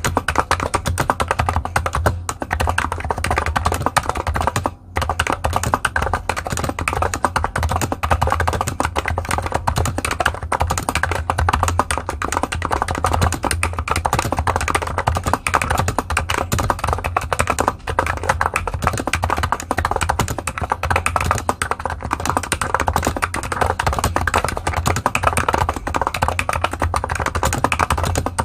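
Continuous typing on a Niz Atom66 keyboard with 45 g Topre-style capacitive switches and its stock side-printed keycaps: a dense stream of keystroke clicks, broken by one brief pause about five seconds in.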